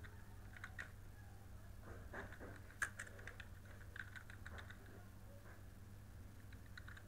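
Faint, slow, irregular keystrokes on a computer keyboard as text is typed, over a steady low electrical hum.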